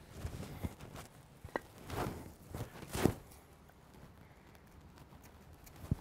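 A handful of dull wooden knocks, irregularly spaced, as pine needles are smashed with a chunk of wood. The loudest knock comes about three seconds in.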